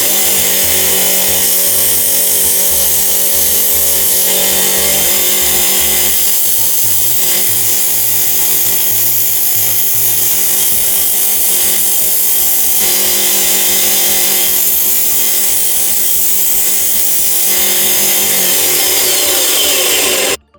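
An electric power tool runs steadily under load, working against a surface, and cuts off abruptly at the end.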